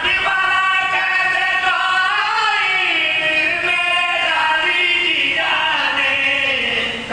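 A man's voice in a sung, chant-like recitation, holding long notes that bend slowly up and down in pitch.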